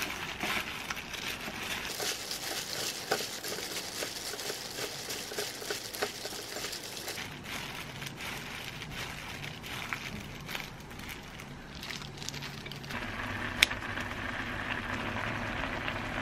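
A disposable plastic glove crinkling and rustling as a hand mixes rice with anchovies and seaweed in a bowl. About three-quarters of the way through, the sound changes to a steadier low hum with one sharp click.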